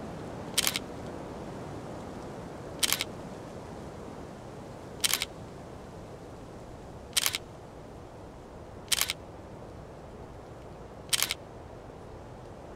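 Single-lens reflex camera shutter firing six times, about every two seconds, each a brief double click, over faint steady background noise.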